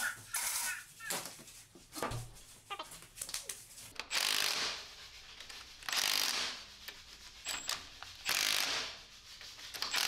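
Milwaukee compact cordless power tool spinning cylinder head nuts down onto their studs in short runs of under a second, about two seconds apart, with light metal clinks before the first run.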